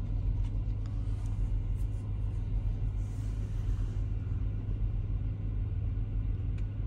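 Steady low hum inside a parked truck's cab with its air conditioning running.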